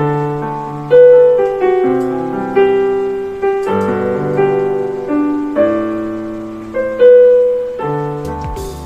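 Electronic keyboard played with a piano sound: slow chords under a melody, each note struck and left to ring and fade.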